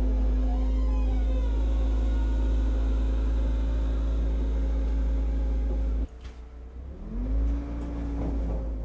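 The engine of a SnoBear tracked ice-fishing vehicle running, with a steady low drone. It drops off about six seconds in, then rises in pitch as it revs.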